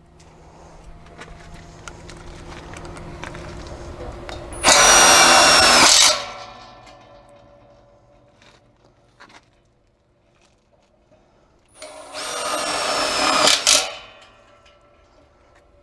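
Cordless drill driving screws into the gate's fittings in two short runs, each about a second and a half to two seconds long, its whine falling slightly in pitch during each run.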